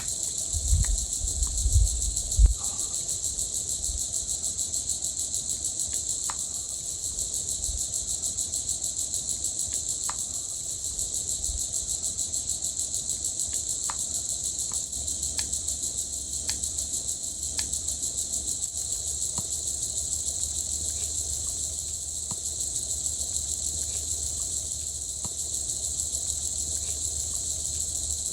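Steady high-pitched chorus of crickets or similar night insects, pulsing rapidly. A few low dull thumps come in the first couple of seconds, and faint scattered ticks occur throughout.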